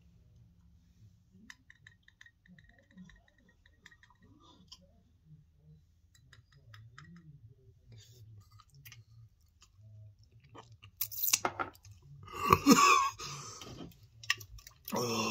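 Man chewing and swallowing a mouthful of chipotle peppers in adobo sauce, with faint wet mouth clicks. About eleven seconds in come loud bursts of coughing and sputtering, and another near the end, as the heat of the peppers hits.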